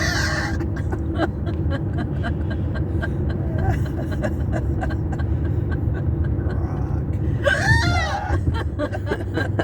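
Steady low rumble of road noise inside a moving car. About three-quarters of the way through, one short voiced sound from a person, under a second long and falling in pitch.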